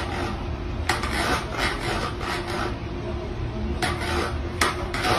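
Plastic bowl with a cat in it scraping and rubbing as the cat shifts about, in short rasping strokes: a run of them about a second in and a few more near the end, over a steady low hum.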